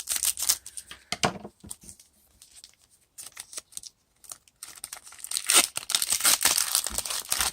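Crinkly wrapper of a 2018 Diamond Kings baseball card pack being handled and torn open: a burst of crinkling at the start, a few light rustles, then a longer, louder stretch of crinkling and tearing in the second half.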